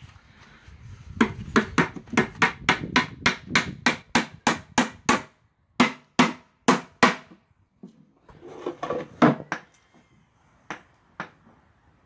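Claw hammer driving nails into a wooden box: a fast run of strikes, about four a second, for some four seconds, then a few slower, heavier blows, and two light taps near the end.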